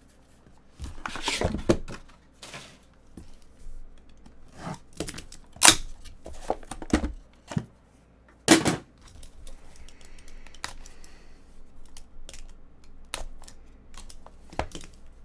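A cardboard trading-card box being opened and handled: rustling, then a string of sharp knocks and clicks as the lid and inner box are moved and set down. Near the end comes a quieter scratching as a box-cutter blade slits the seal on the small white inner box.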